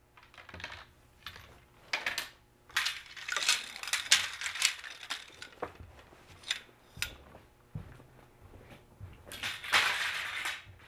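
Metal frame rods of a folding kayak clinking and rattling against each other as they are handled and gathered, with a rustle near the end.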